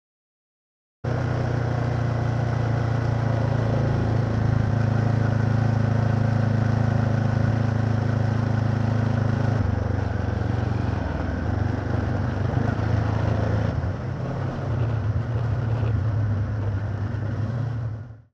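Honda CB500X motorcycle's parallel-twin engine running steadily, starting suddenly about a second in. Its note shifts about ten seconds in and again near fourteen seconds.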